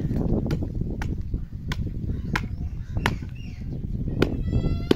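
Dry clay clods being pounded with a wooden pole to crush them for tandoor-making clay: about seven dull strikes at a steady pace, roughly one every two-thirds of a second.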